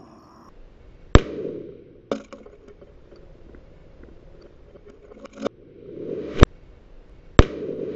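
Three .40 S&W shots from an Interarms Firestar semi-auto pistol, each followed by a short echo. The first comes about a second in; the other two come near the end, a second apart. Two fainter knocks fall in between.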